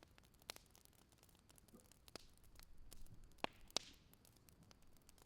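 Faint crackle of an oak wood fire: sparse, irregular small pops over a soft hiss, near silence overall.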